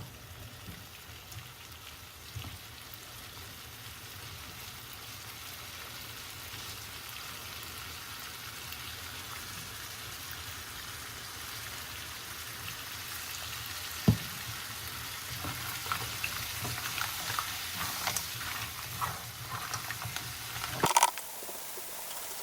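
Mussels sizzling in a wok over high heat, the frying hiss slowly growing louder. A sharp click comes about two-thirds of the way through, then scattered clatter and a loud knock near the end.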